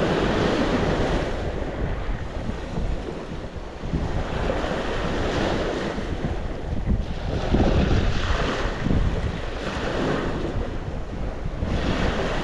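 Sea waves breaking and washing ashore, swelling and fading in surges every few seconds, with wind rumbling on the microphone.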